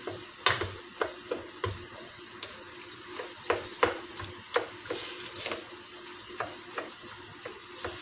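A spatula scraping and knocking irregularly against a stainless steel wok as stir-fried vegetables and tofu are tossed, over a steady sizzle.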